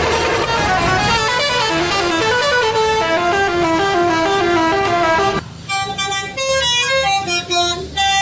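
Multi-tone 'telolet' horn of an odong-odong mini-train playing a melody of stepped notes over a low rumble. About two-thirds of the way through the rumble drops away and the notes come shorter, with brief gaps between them.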